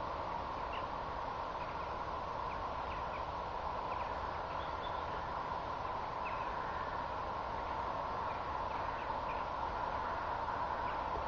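A pony walking, with faint, irregular hoofbeats over a steady outdoor hiss.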